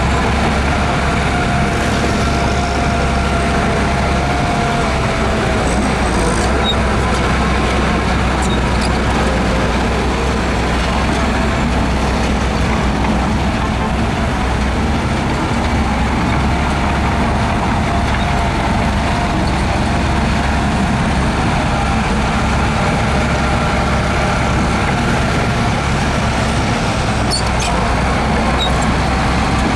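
Heavy earthmoving machine's diesel engine running steadily, with a few faint metallic clicks about a quarter of the way in and again near the end.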